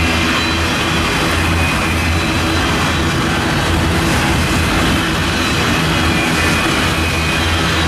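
Freight train going by: the steady, loud rumble of its diesel locomotives and rolling cars, with no breaks.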